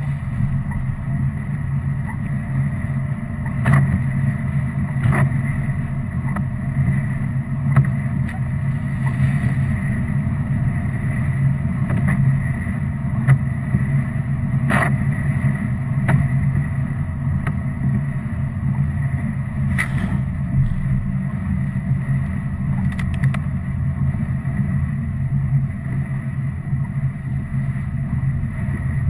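Car cabin noise while driving on a wet road: a steady low drone of engine and tyres, with a few short sharp knocks scattered through.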